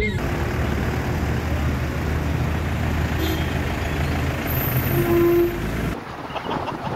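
Steady engine and road noise heard from a vehicle driving in traffic, with a short steady tone like a horn about five seconds in. Near the end the sound drops abruptly to lighter wind buffeting on the microphone.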